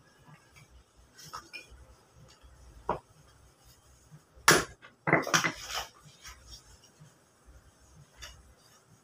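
Lumps of wood charcoal clinking and knocking together as they are picked through and dropped by hand. The knocks are scattered, with the loudest about four and a half seconds in and a quick cluster just after five seconds.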